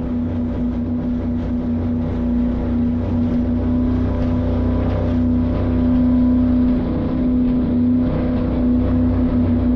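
Steady, high-revving motor sound held at a constant pitch, with a rush of wind and water over it.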